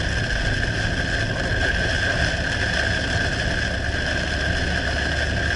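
Steady engine and road noise of a vehicle travelling on the highway, with a constant high-pitched tone over it.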